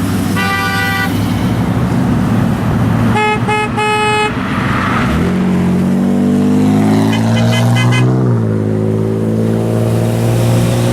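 Freeway traffic with car horns honking: one honk at the start, three short toots about three seconds in and a couple more around seven seconds. From about five seconds in, a vehicle engine climbs in pitch as it accelerates and drops about eight seconds in at a gear change.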